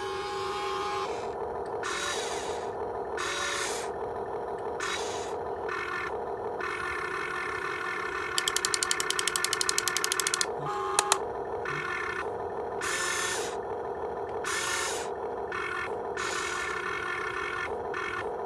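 Huina 1592 RC excavator's small electric motors whining as the machine works, with repeated scraping and, about halfway through, a rapid clicking run lasting about two seconds.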